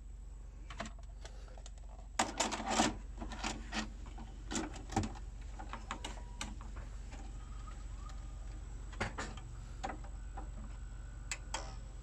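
Samsung SV-660B VHS video cassette player's mechanism clicking and clunking, a quick run of clicks about two seconds in and then single clicks every second or so, as a tape is loaded ahead of playback. A steady low hum sits underneath.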